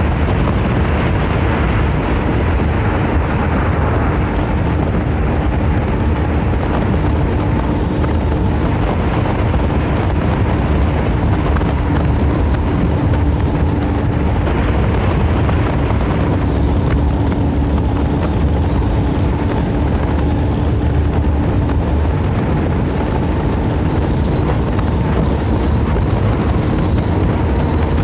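Wind buffeting the microphone aboard a small trimaran under way on a river: a steady low rumble with a faint even hum underneath.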